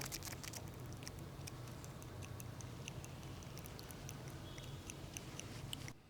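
Faint, irregular small clicks and ticks coming from a Husqvarna 61 chainsaw carburettor with the engine stopped, over a low steady hum. These are the unexplained noises that make the carburettor seem 'alive'.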